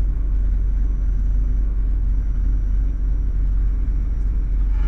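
Steady low drone of a Cessna 152's four-cylinder Lycoming engine and propeller in flight, a constant rumble with no change in pitch or level.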